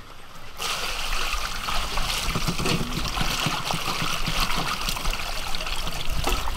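Steady trickle of running water, starting suddenly about half a second in.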